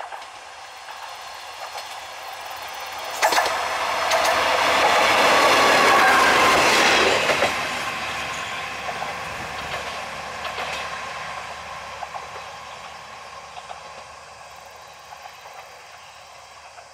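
KiHa 205 single-car diesel railcar passing close by: the sound of its engine and wheels swells quickly, with sharp wheel clicks on the rails about three seconds in. It is loudest for a few seconds, then fades away as the railcar runs off.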